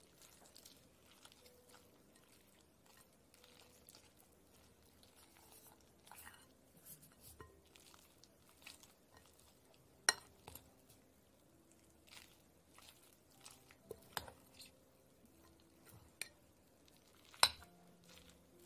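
Metal spoon mixing rice, seasoned spring cabbage and a fried egg in a ceramic bowl: soft squishing and scraping, with short clinks of the spoon against the bowl. Three clinks stand out, the loudest near the end.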